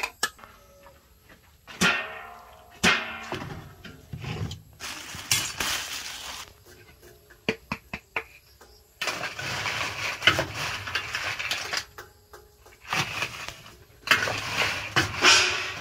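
Crisp fried banana chips being handled: a few sharp clinks of a metal spoon on the plate, then two long stretches of crackling rustle as the chips are scooped with a plastic scoop and poured into a plastic bag.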